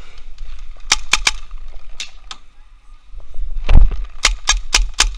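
Paintball markers firing: sharp pops in quick strings, about three near the first second, two around two seconds, then a faster run of about five from just before four seconds, the loudest of them then.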